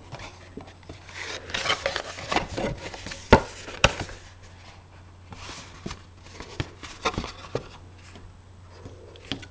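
Card stock being handled and folded into a pop-up card base: irregular rustling and scraping of the paper, with two sharp taps a little over three seconds in and about half a second apart.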